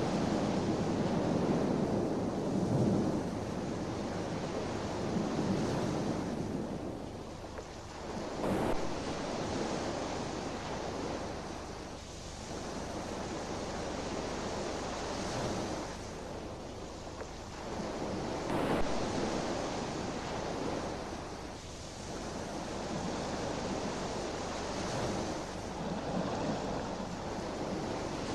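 Waves breaking on a shore: a steady rush of surf that swells and ebbs every four or five seconds.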